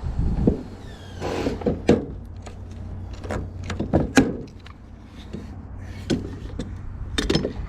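Irregular knocks, taps and clatter of metal roofing trim being handled and fastened, with a brief rising whir about a second in, over a steady low hum.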